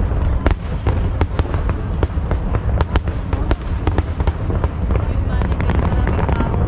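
Aerial fireworks display going off continuously: many sharp bangs and crackles in quick succession over a heavy, unbroken low rumble.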